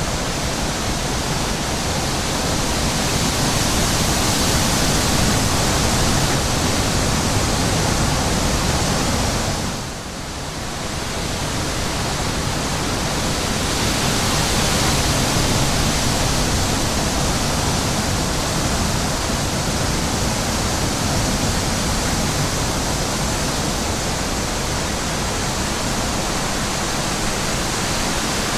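Steady wind rushing over the microphone in an open field, with a short lull about ten seconds in.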